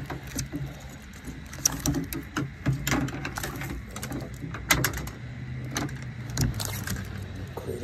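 Irregular clicks and knocks as a landing net holding a trout shifts and settles on the dock, with a low steady hum underneath.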